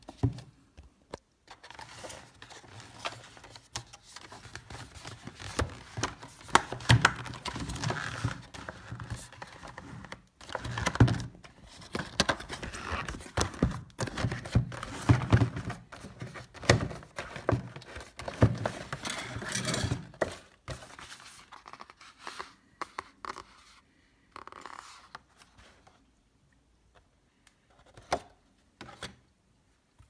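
Cardboard packaging sleeve being handled and slid off a hard plastic carrying case: scraping, rustling and sharp knocks, busy for most of the time, then only scattered taps near the end.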